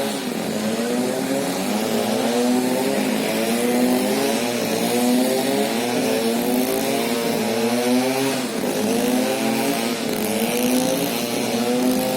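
Excavator running while it lifts timber, a continuous pitched machine drone whose pitch wavers up and down as it works.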